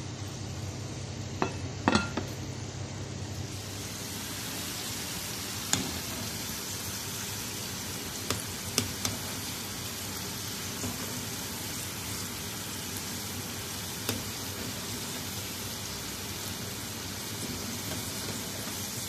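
Potato chunks deep-frying in hot oil, a steady sizzle, with a few light clinks of a wire skimmer against the pan as they are stirred. The sizzling starts about three and a half seconds in, after a short stretch of low hum with two knocks.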